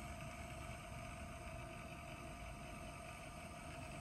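Corsair HX1000 power supply's 135 mm, 12 V two-pin DC fan running, a faint steady whir with one held tone. The owner puts the fan's noise down to its bearings causing vibration.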